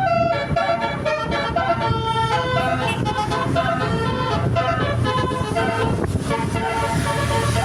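Multi-tone 'telolet' bus horn playing a quick tune of stepped notes, with the bus's engine humming low and steady beneath.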